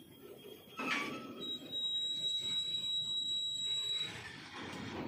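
Freight train's covered goods wagons rolling past: a low rumble of wheels on rail, a sharp clank about a second in, then a steady high-pitched squeal from the running gear for about two and a half seconds.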